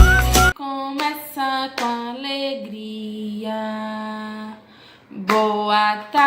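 A woman singing a children's good-afternoon greeting song alone, with long held notes and a short break about five seconds in. A loud instrumental jingle cuts off just after the start.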